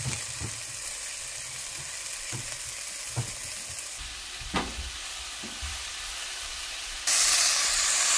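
Sliced red onions and diced red pepper sizzling in olive oil in a skillet, with a spatula stirring and tapping against the pan a few times. The sizzle gets louder near the end.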